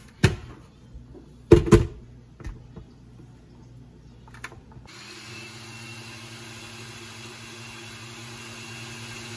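Glass blender jar clunking a few times as it is set on the base, then about five seconds in the blender motor starts and runs with a steady hum, puréeing boiled tomatoes, chile negro, onion and garlic in their cooking water into a sauce.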